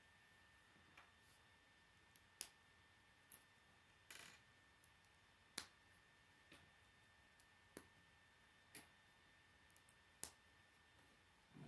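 K'nex plastic rods and connectors clicking as they are handled and snapped together by hand: about a dozen short, sharp clicks at irregular intervals, with a brief rattle about four seconds in. A faint steady high whine runs underneath.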